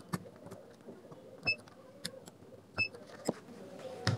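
Handheld battery spot-welder pen firing as it welds nickel strip onto 18650 lithium-ion cells: a string of sharp snaps. Two of them, about a second and a half apart, come with a short high beep from the welder.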